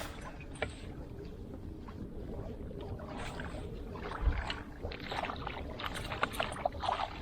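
Water lapping and splashing against a kayak hull over a steady low rush, with a run of small irregular clicks and knocks starting about three seconds in and growing busier.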